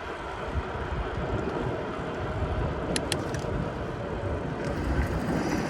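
Bicycle riding on pavement: steady tyre rumble and wind noise, with two sharp clicks in quick succession about three seconds in and a faint steady tone coming in near the end.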